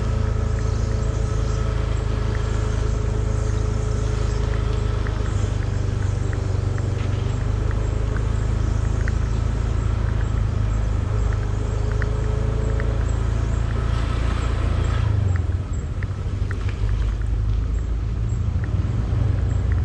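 Small motorbike engine running at low speed, with wind rumble on the microphone as it rides. The sound changes and eases a little about fifteen seconds in.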